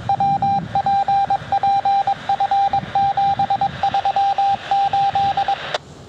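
A single steady beep-like tone, keyed on and off in long and short pulses like Morse code, heard through a radio receiver. It stops about five and a half seconds in with a sharp click, as the transmission cuts off.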